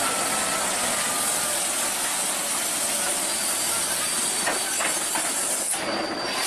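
Steady hissing noise of a heavy truck moving along the road, with a few light knocks about four to five seconds in.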